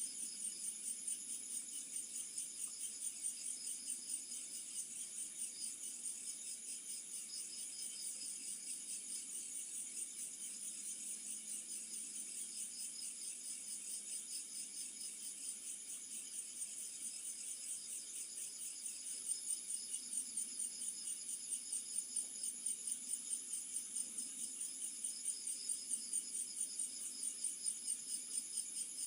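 Night insects chirping in a steady chorus, a high, fast-pulsing trill that never stops.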